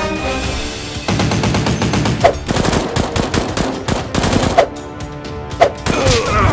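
Long bursts of rapid automatic gunfire, starting about a second in, then a few single shots, over background music.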